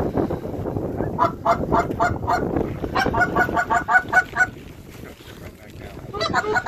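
Goose honks in rapid runs of about four a second, starting about a second in, pausing briefly, and starting again near the end, over low wind rumble on the microphone at the start.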